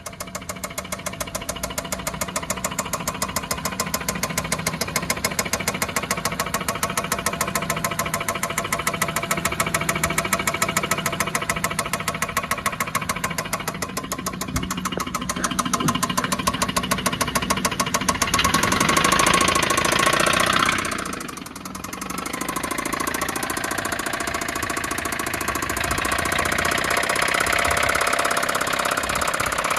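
Suzuki Celerio engine running with a fast, regular knocking tick: the abnormal engine noise being checked. It grows louder about two-thirds of the way through, drops away briefly, then builds again.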